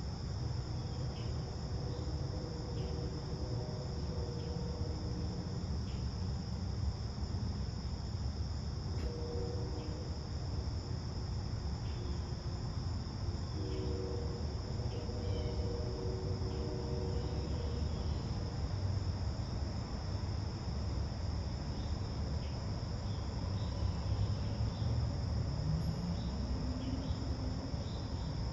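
Crickets calling in a steady, unbroken high-pitched chorus, over a low background rumble.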